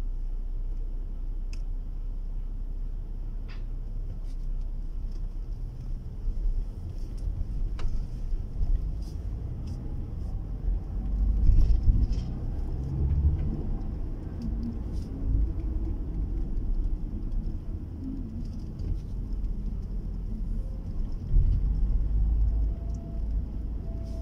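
Low road and engine rumble of a car, heard from inside the cabin while driving, swelling louder around the middle and again near the end.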